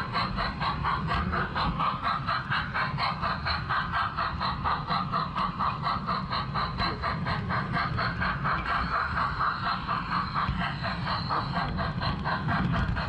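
LGB garden-scale model train running along its track, heard from on board: a steady rhythmic clatter of about five beats a second over a low running rumble.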